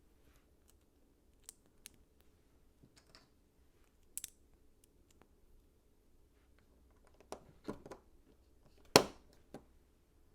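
LEGO pieces being handled and pressed together: scattered small plastic clicks and taps, with the loudest snap about nine seconds in.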